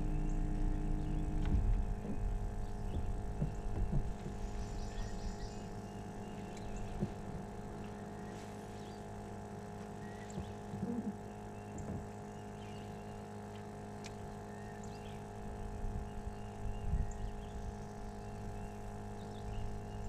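Steady electric hum of a bass boat's bow-mounted trolling motor over a low rumble, with a few light knocks.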